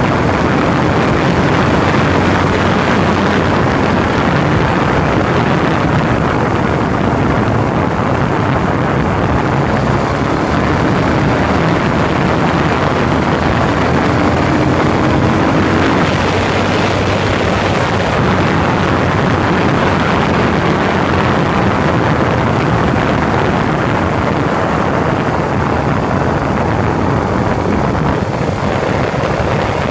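Heavy wind rush on the microphone of a moving motorcycle at road speed, with the engine faint underneath. The engine pitch rises briefly about halfway through.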